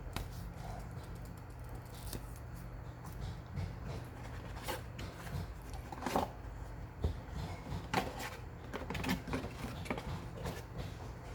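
Scattered soft rustles and clicks of watch packaging and paperwork being handled during unboxing, over a steady low hum.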